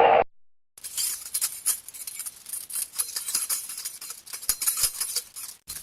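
A siren-like wail cuts off abruptly just at the start. After a short silence comes a long, irregular, high-pitched jingling rattle of many small quick clicks, like keys or small metal pieces being shaken.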